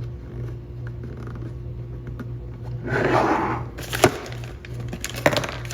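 Small hardware and 3D-printed plastic parts being handled: a rustling scrape about three seconds in, then two sharp clicks, over a steady low hum.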